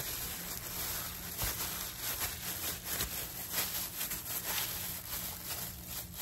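Disposable plastic gloves crinkling and rustling in irregular crackles as hands roll and squeeze a seaweed-wrapped gimbap roll, over a low steady hum.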